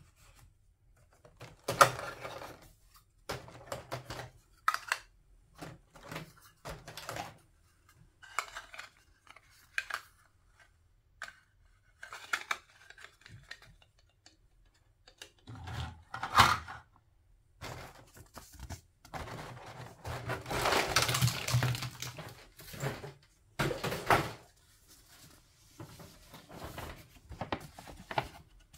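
Hands handling toy play-food pieces, giving irregular taps, clicks and knocks as the pieces are picked up and set down. A louder knock comes about sixteen seconds in, and a longer, denser stretch of handling noise comes around twenty seconds in.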